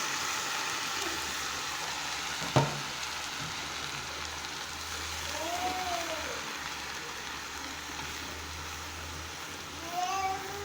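Soaked soy meat frying in hot oil, giving a steady sizzle, with a single sharp knock of a utensil about two and a half seconds in.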